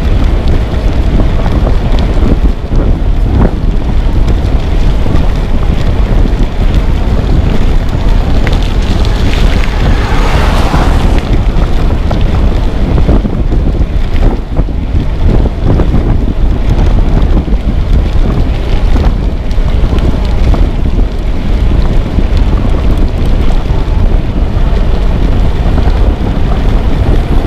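Wind buffeting the microphone, a loud continuous low rumble. A brief hiss of higher noise rises and falls about ten seconds in.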